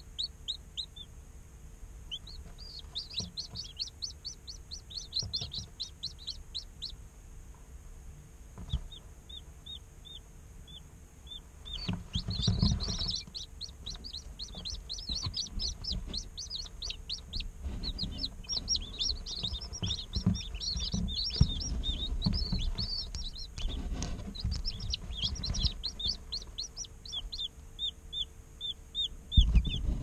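Day-old chicks peeping: runs of short, high chirps that slide downward, coming thick and fast for much of the time, with soft knocks and rustling among them.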